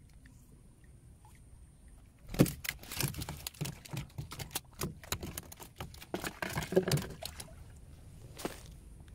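A run of irregular knocks, rattles and splashes in and around a small boat at the water's edge, starting a couple of seconds in and lasting about five seconds, with one more knock near the end.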